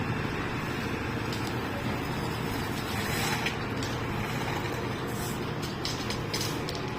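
Heavy diesel vehicle engine running steadily, with a few brief hissing or scraping noises about three seconds in and again near the end.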